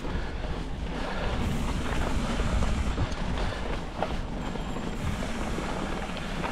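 Evil Wreckoning full-suspension mountain bike riding a dirt trail: a steady rumble of tyres and wind, with irregular clicks and rattles from the bike over bumps.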